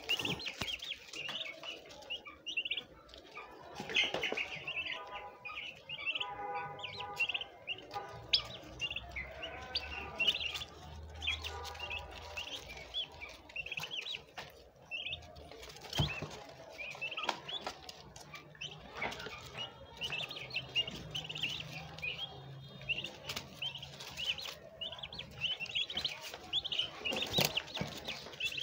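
A group of turkey poults peeping: many short, high chirps, overlapping and running on almost without a break.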